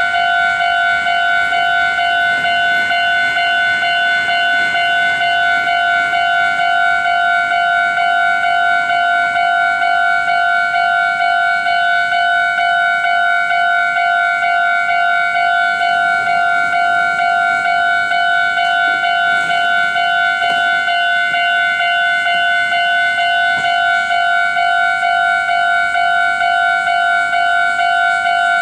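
Railway level-crossing warning bell ringing continuously, a pitched ding repeated at an even pace without pause. It signals that a train is approaching and the crossing is closed.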